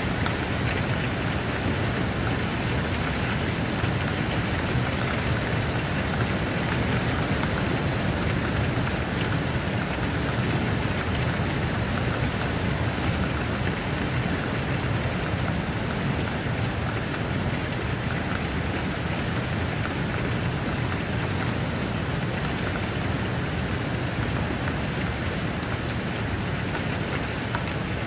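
Steady heavy rain falling, an even, constant hiss of drops with no let-up.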